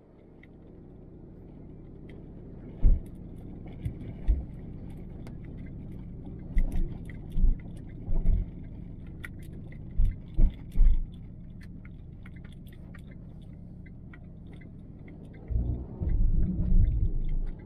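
A car driving, heard through a car-mounted action camera: a steady low road and engine rumble, broken by a dozen or so heavy low thumps and a longer run of them near the end, with light clicking rattles throughout.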